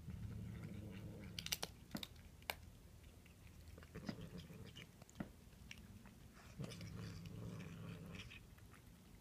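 Cat chewing and crunching a chicken wing, with sharp cracks of bone between bites. A low hum rises underneath twice, for a second or two each time.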